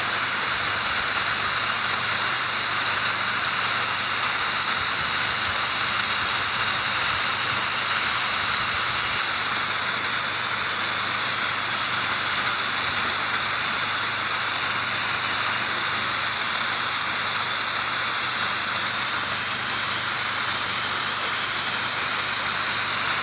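High-pressure water spray from a pressure washer wand, a steady unbroken hiss with a faint high whine.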